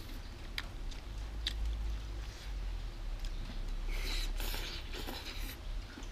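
A person eating noodles with chopsticks: chewing and a few sharp clicks in the first two seconds, then a hissy slurp of noodles about four seconds in. A steady low rumble runs underneath.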